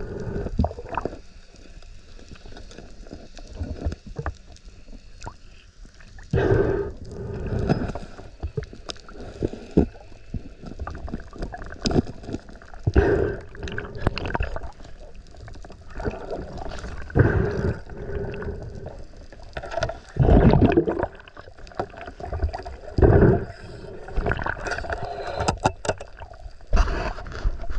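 Seawater sloshing and gurgling around the camera, in irregular surges every few seconds.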